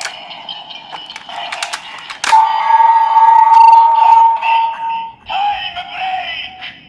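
Kamen Rider Zi-O transformation toy playing electronic sound effects and music through its small, bass-less speaker. A sharp click comes about two seconds in, then a loud held electronic tone that breaks off about five seconds in, and more jingle follows.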